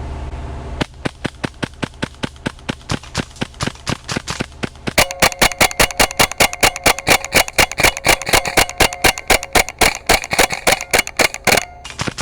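Airsoft gun firing a long string of rapid shots, about five a second, fainter at first and much louder from about five seconds in, stopping shortly before the end.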